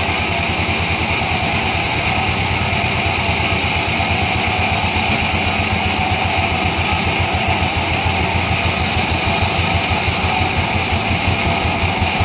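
An engine running steadily with a fast, even pulse, its level unchanging throughout.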